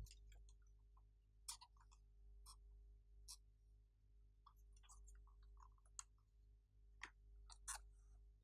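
Faint, scattered clicks and taps of fingernails and hands handling a plastic tray of clay balls, over near silence.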